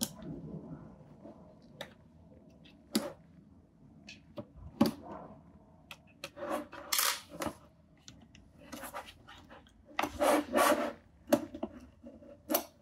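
A Huawei laptop's plastic hinge cover on the screen assembly is being pried loose by hand. Intermittent scraping and rubbing is broken by several sharp clicks, with the longest scraping stretches about seven and ten seconds in.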